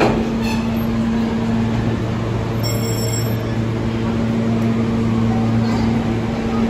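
Subway train at the station giving off a steady electrical hum, a low tone with a higher one above it.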